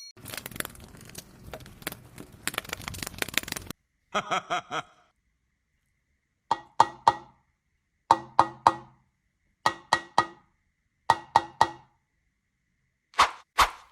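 A dense crackling, crunching noise for the first few seconds. Then come short groups of three or four sharp, hollow knocks with a ringing pitch, like a wood block, repeating about every second and a half.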